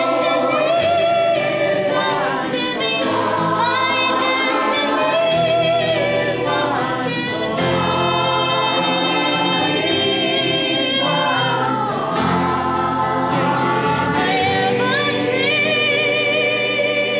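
Mixed community choir singing in harmony, with a teenage girl's solo voice and a man's voice leading at the microphones.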